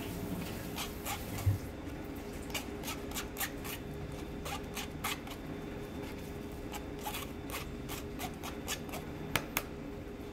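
Metal spoon scraping and clicking against a fine wire-mesh strainer as cooked pumpkin is pressed through it, in irregular strokes, with a low thump about a second and a half in. A low steady hum runs underneath.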